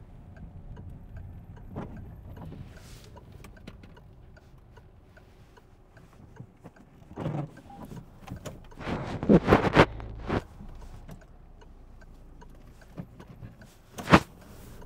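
Inside a car at low speed: low engine and cabin hum with faint light ticking, a cluster of loud knocks and rattles about nine to ten seconds in, and a single sharp click near the end.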